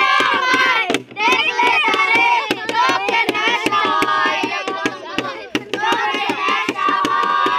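Group of boys singing a song together, accompanied by a plastic jerrycan beaten with two sticks as a drum in quick, regular taps. The singing breaks off briefly about a second in, then resumes.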